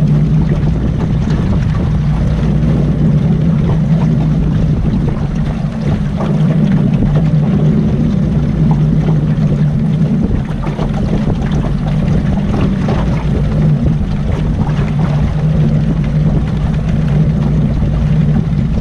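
Boat's outboard motor running steadily at low trolling speed, a constant low hum.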